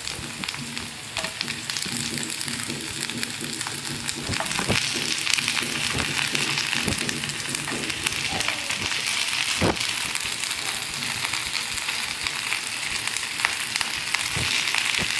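Schezwan sauce with garlic and spring onions sizzling in a nonstick frying pan as fried chicken lollipops are dropped in piece by piece. The sizzle grows louder about five seconds in, with a few soft knocks as pieces land in the pan.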